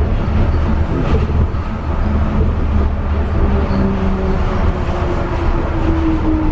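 Kobe Port Liner rubber-tyred automated train running along its guideway, heard from inside the car: a steady low rumble, with a motor whine that slowly falls in pitch in the second half.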